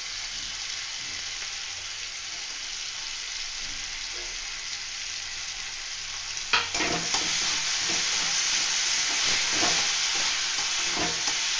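Onion, tomato and freshly added green chillies sizzling in hot oil in a metal kadai. About halfway through, a flat metal spatula knocks against the pan and starts stirring and scraping, and the sizzle grows louder.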